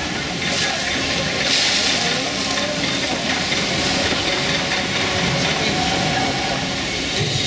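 Water rushing along a log flume channel, with a louder surge of water about a second and a half in; a crowd's chatter runs underneath.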